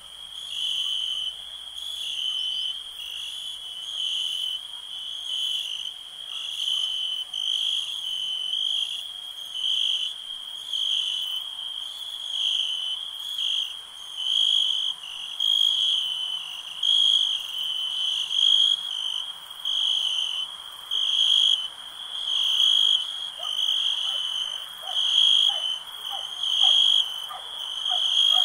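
Night-time insect chorus: a high chirping that pulses steadily about once a second. In the last several seconds, frogs join in with short quick calls.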